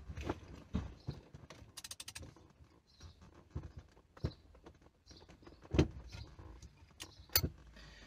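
Socket wrench ratcheting on a steering wheel's centre bolt: a quick run of ratchet clicks about two seconds in, with a few scattered knocks of the tool and wheel.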